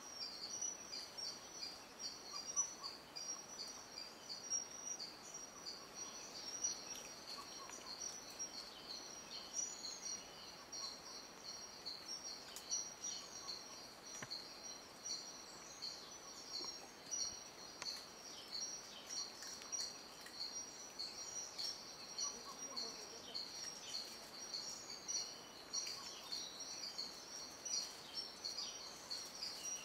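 Rainforest ambience: a steady, high-pitched chorus of rapid, evenly repeated chirps that never lets up, with faint scattered calls lower down.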